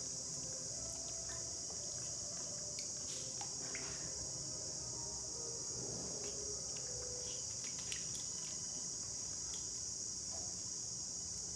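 A steady high-pitched hiss or chirring runs throughout, with faint small splashes and water movement as a baby monkey paddles in a plastic basin of water.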